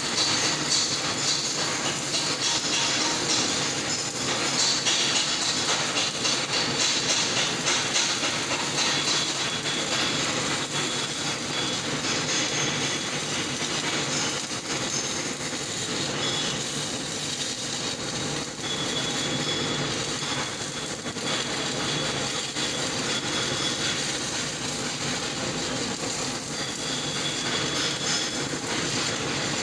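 Shielded metal arc welding with an E-6010 electrode: the arc crackles steadily as a weld bead is run.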